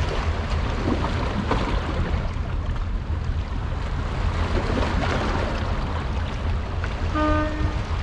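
Steady sea-and-wind ambience with a deep low rumble. About seven seconds in comes a short pitched tone, under a second long.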